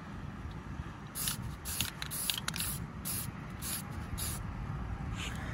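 Aerosol spray-paint can sprayed in a quick run of short hissing bursts, about ten of them, starting about a second in, as a camouflage coat of olive drab is dusted onto a rifle.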